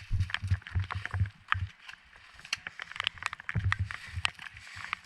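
Footsteps thudding at a jog, about three a second, mixed with sharp clicks and rattles of gear. The steps ease off about two seconds in and pick up again near the end.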